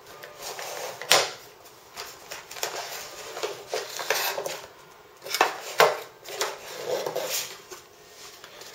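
Unboxing handling noise: irregular sharp clacks and knocks of hard plastic parts and cables being taken out, with packaging rustling between them. The loudest knocks come about a second in and twice between five and six seconds in.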